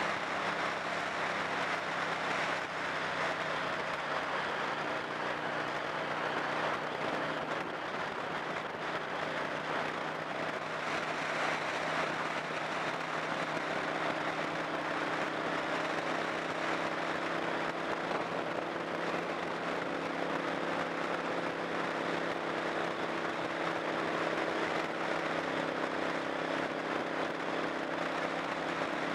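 A car being driven at road speed: steady tyre and wind noise with a low engine hum underneath, whose pitch shifts slightly about halfway through.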